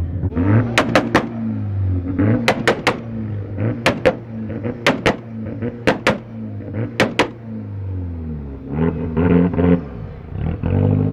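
Car engine revving, with sharp exhaust pops and bangs in quick pairs or threes about once a second between the revs, easing off in the last few seconds.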